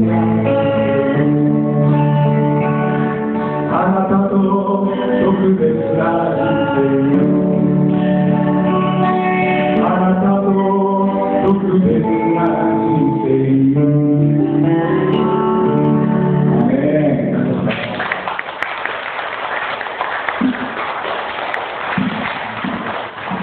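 A man singing a Japanese worship song, accompanied by acoustic and electric guitar. About eighteen seconds in, the song ends and applause follows.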